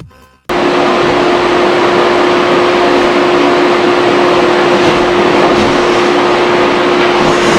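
A small electric motor blowing air runs steadily: a loud, even rush of air with a steady hum. It starts abruptly about half a second in.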